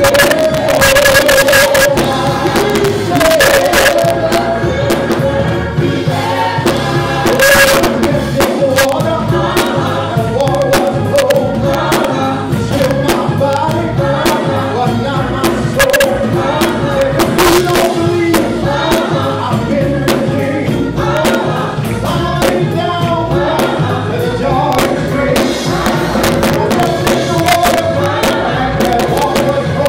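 Live gospel singing by a praise team of men's and women's voices through microphones, with hand-played conga drums keeping the beat.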